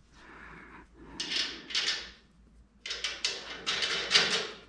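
A series of short scrapes and rustles from a bolt and nut being handled and fitted through the top mount of a coil-over shock: two near the middle, then a quick run of several more near the end.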